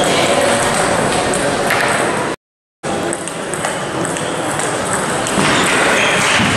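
Table tennis hall with several matches going on: steady patter of table tennis balls clicking off bats and tables, over hall noise. The sound cuts out completely for about half a second some two and a half seconds in.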